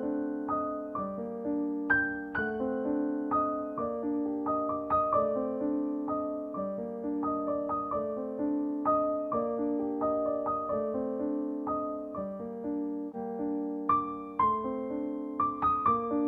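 Background piano music: a gentle melody of separate struck notes over held lower chords.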